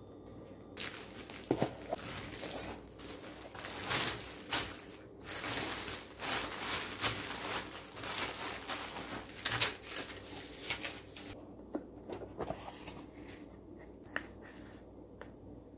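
Thin plastic takeout bag rustling and crinkling as it is opened and containers are lifted out of it. Near the end the rustling stops and only a few light taps and clicks remain.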